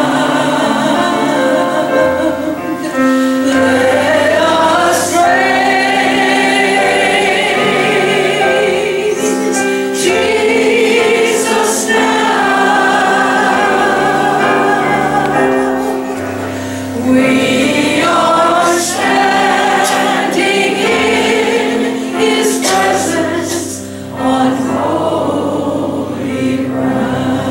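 Church choir singing in full voice, with a wavering vibrato on the held notes, over a steady instrumental accompaniment.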